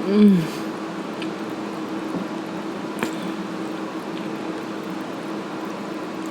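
A short, falling 'mmm' of pleasure from the eater, then soft, wet chewing of a chicken sandwich with a couple of faint clicks. A steady low hum runs underneath.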